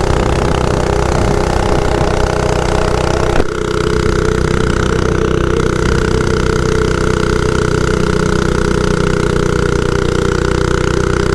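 Mini bike's small engine running steadily under load as it climbs a hill through its torque converter, holding an even note. A brief click about three and a half seconds in, after which the sound changes slightly.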